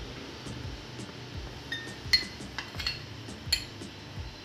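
A spoon clinking against a glass tumbler a handful of times, each clink ringing briefly, as gram-flour sattu is spooned into the glass.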